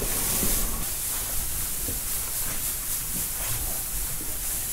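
Loose straw-like hay rustling and swishing as bale flakes are pulled apart, shaken out and tossed by hand onto the floor, a steady crackly hiss.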